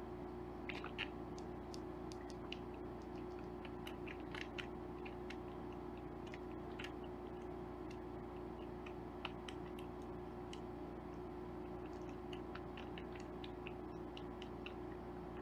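Faint, irregular small clicks and smacks of a tiny kitten sucking milk from a feeding-bottle nipple, over a steady low hum.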